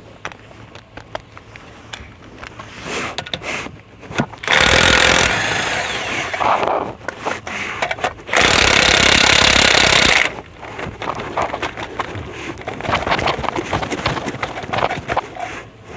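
Power impact wrench hammering on a wheel's lug nuts in two bursts, a short one about four and a half seconds in and a longer one of about two seconds a few seconds later, with clinks and handling noise between.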